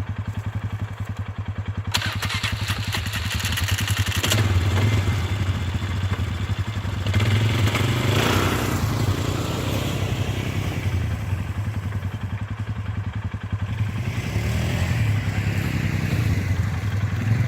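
ATV engine running steadily, then revving up and pulling harder from about four seconds in, with surges near the middle and toward the end. A brief loud hiss sounds about two seconds in.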